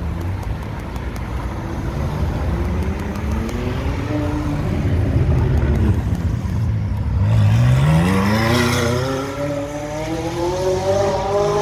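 High-performance car engines accelerating hard. One engine's note rises in pitch, then about seven seconds in a louder acceleration climbs steadily in pitch, still rising at the end.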